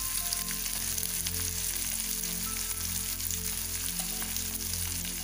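Chopped onions, green chilli and ginger-garlic paste sizzling in hot mustard oil in a kadhai: a steady frying hiss.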